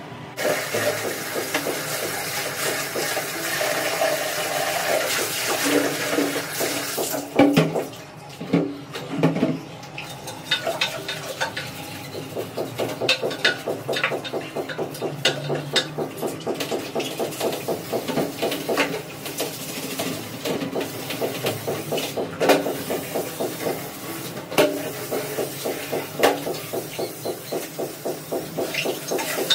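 Water running for several seconds, then a long run of rhythmic scrubbing strokes, about two or three a second, as a bathroom is scrubbed clean.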